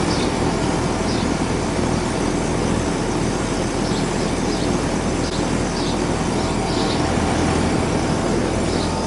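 Outdoor central air conditioner condenser unit running steadily up close, its fan and compressor giving a loud, even whoosh over a low electrical hum.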